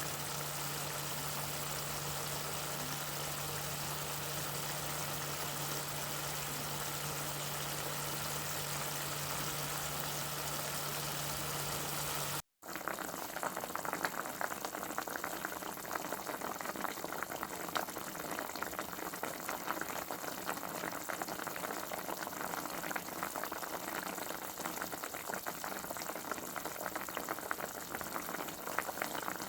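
Liquid boiling in a cooking pot. For the first twelve seconds or so it is a steady bubbling hiss over a low steady hum; after a momentary break, a busier bubbling full of small pops.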